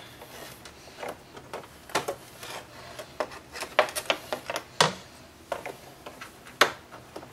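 Flat-blade screwdriver and needle-nose pliers working a plastic pop rivet loose and pulling it out: irregular clicks, taps and short scrapes of metal tools on plastic, the sharpest near five and six and a half seconds in.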